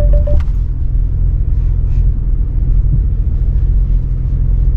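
Porsche 911 Dakar's twin-turbo flat-six engine running steadily at an even speed, a low continuous rumble. A quick run of short electronic beeps cuts off just after the start.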